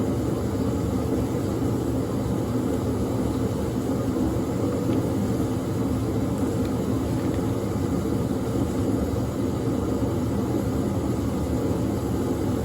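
Steady low mechanical rumble that does not change.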